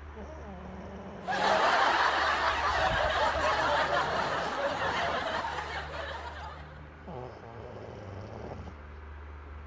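A loud, breathy noise from a person, starting suddenly about a second in and fading away over about five seconds.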